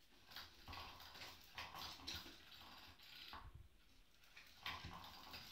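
Faint whirring of a battery-powered butterfly cat toy's motor, starting and stopping in short irregular spells, with kittens pawing at the plastic toy.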